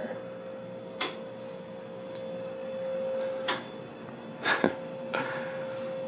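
1984 Casablanca Four Seasons ceiling fan with first-generation Inteli-touch control running slowly on speed two, giving a steady hum, with a few light clicks scattered through it.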